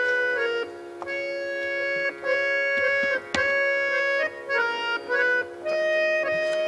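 Harmonium playing a melody of held notes, one after another, over a steady sustained drone note. A few short sharp knocks sound over it, the clearest about halfway through.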